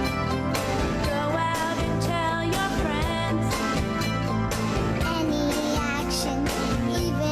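A song playing: a sung vocal melody over instrumental backing with a steady beat.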